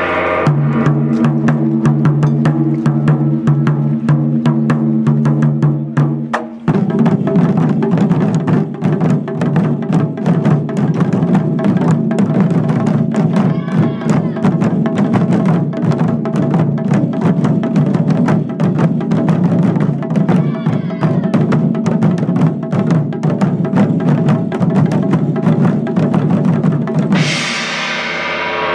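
Japanese taiko drums played in fast, dense strokes over steady held tones, the music shifting to a new section about six and a half seconds in.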